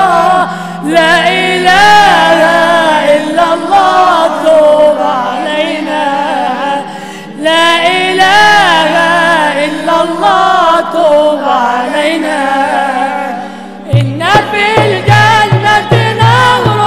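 A mixed choir of men's and women's voices singing an Islamic devotional song (inshad) in praise of the Prophet, unaccompanied at first. About fourteen seconds in, a hand-played frame drum comes in with a steady beat under the voices.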